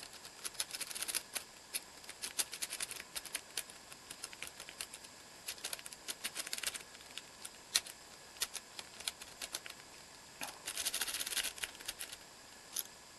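Lock pick raking the pins of a 50 mm brass padlock (Potent model 2750): bursts of rapid, light metallic clicking and scraping as the pick is scrubbed in and out over the pin stack, in three busier spells with scattered single clicks between.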